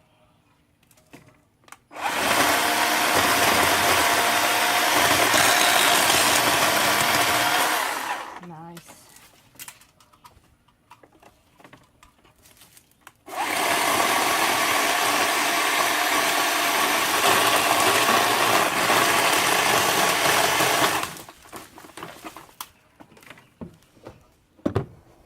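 WORX 40-volt battery-powered electric chainsaw running in two long cuts of about six and eight seconds through thick azalea stems, with a steady motor whine under the chain noise. Light clicks and snaps of branches come between and after the cuts.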